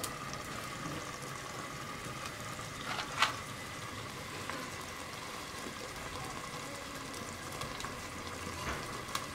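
Tomato sofrito simmering in a large stainless steel pot, a steady soft bubbling hiss, while the added brandy is being flambéed. One sharp pop comes about three seconds in.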